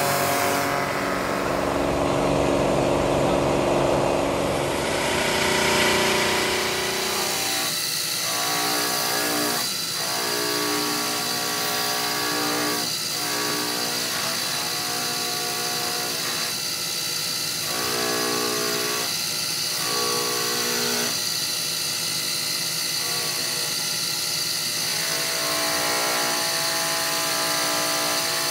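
Motor-driven polishing wheels running as a knife and its handle are held against them. The first few seconds are a harsher grinding hiss; after that comes a steadier tone that changes every second or two as the work is pressed on and eased off.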